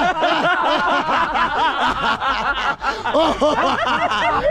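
Several men laughing loudly together in a deliberate, forced laughter-yoga exercise started on a countdown, a continuous overlapping stream of short ha-ha syllables.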